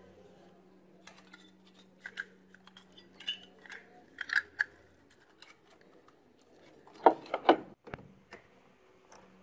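Small hard plastic parts clicking and rattling as a circuit board is fitted into its plastic cover and set into a plastic housing, with a few sharper, louder clicks about seven seconds in.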